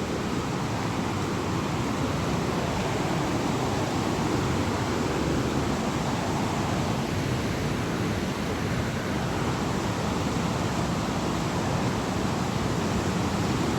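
Steady rush of a nearby waterfall, an even roar of falling water without breaks.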